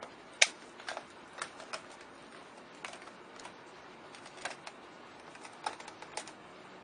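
Irregular light clicks and taps, as of buttons or plastic parts of a toy karaoke machine being handled; the sharpest comes about half a second in.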